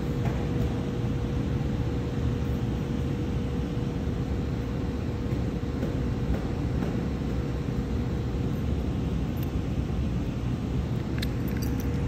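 Steady low rumble of a donut shop's kitchen machinery, with a constant mid-pitched hum. There are a few light clicks near the end.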